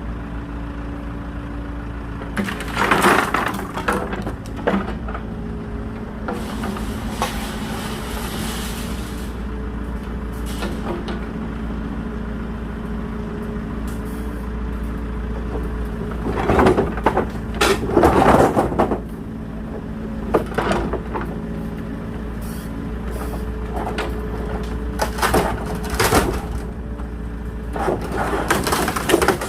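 Small farm excavator's engine running steadily while its bucket pushes into wooden pallets, which crack and crunch loudly in several short bursts.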